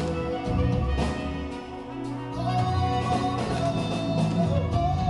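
Background music for the dance: a long-held melody line over bass and percussion.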